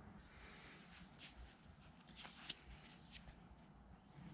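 Near silence, with a few faint small clicks and rustles of handling, the sharpest about two and a half seconds in.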